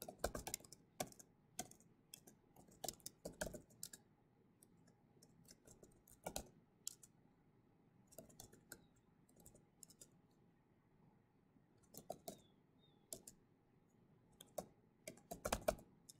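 Typing on a computer keyboard: keystrokes in short irregular bursts, with pauses of a second or two between words.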